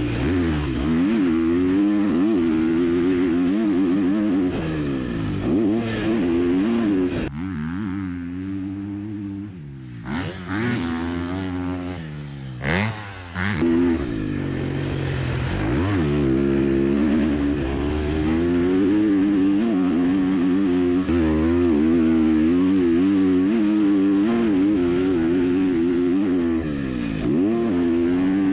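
KTM 250 SX-F single-cylinder four-stroke motocross bike being ridden hard on a track, its engine note rising and falling over and over as the rider works the throttle and gears. The engine drops off for a couple of seconds about seven seconds in, then comes back with a few sharp blips.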